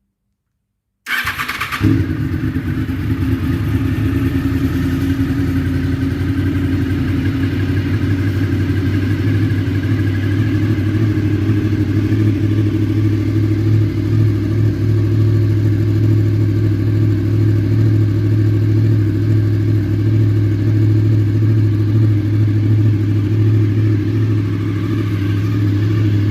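Honda VFR800 V4 engine cold-started through a Staintune slip-on exhaust with the baffle removed: the starter spins briefly about a second in, the engine catches, then it idles steadily.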